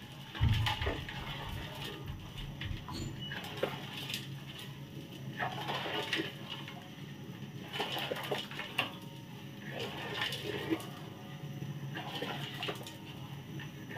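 Wooden spatula stirring pandan water with agar-agar in an aluminium wok: liquid sloshing and the spatula scraping the pan in irregular strokes.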